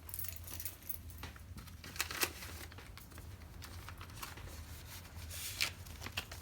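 Handling noises from a replacement Wolff 22 lb firing pin spring and K98 bolt parts: scattered light clicks, over a steady low hum.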